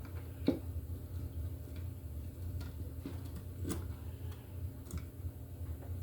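A few scattered light clicks and taps from handling small parts and cable, over a steady low hum.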